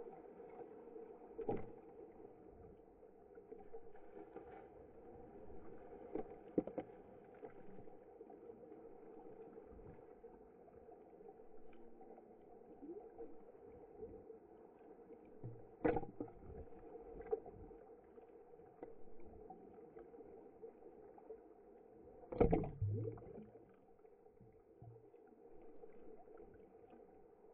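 Pool water sloshing and lapping around a camera held at the waterline, muffled, over a steady hum, with a few sharp splashes or knocks; the loudest comes about 22 seconds in.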